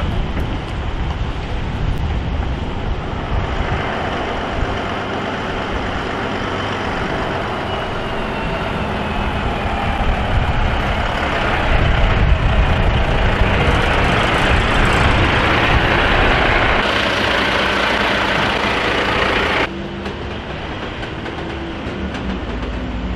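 A Volvo heavy-haulage tractor unit and its multi-axle trailer roll slowly past under a heavy load, with the diesel engine running and many tyres rumbling on the road. The sound is loudest as the tractor unit passes, about halfway through, and drops abruptly near the end.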